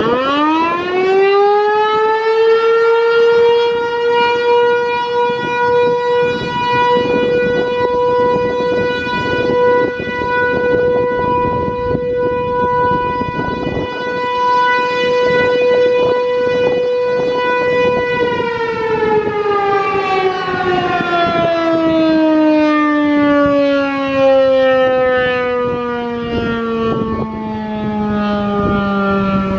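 American Signal Corporation T-128 outdoor warning siren running its short-alert test cycle. It winds up quickly to a steady single tone, holds for about fifteen seconds, then winds down slowly with its pitch falling. Wind buffets the microphone throughout.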